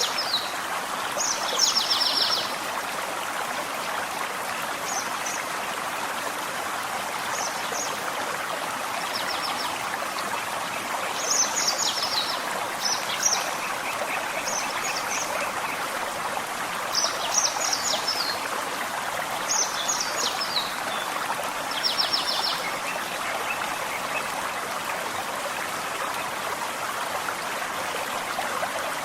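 A small forest stream running steadily, with a songbird singing short, high, chirping and trilled phrases every few seconds over it. The bird stops for the last several seconds.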